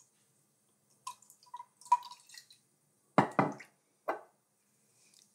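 Balsamic vinegar dripping from a bottle into a glass measuring cup, then a few louder splashes about three seconds in as it is poured from the cup into a glass bowl of olive oil.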